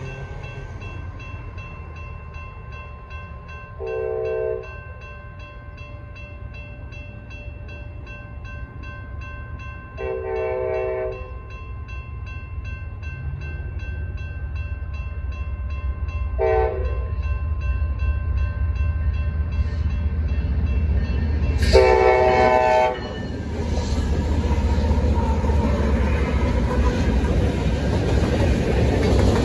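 Freight train's diesel locomotive air horn sounding the grade-crossing signal, two long blasts, one short and one long, the last the loudest, over a crossing bell ringing rapidly and steadily. The rumble of the locomotive builds after the last blast as it reaches the crossing.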